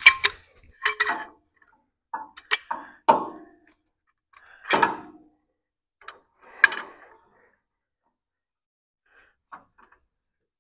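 Metal clanks and knocks as a clamp is fitted and tightened onto a steel truck frame rail: a run of separate sharp clanks over the first seven seconds, then a few faint ticks.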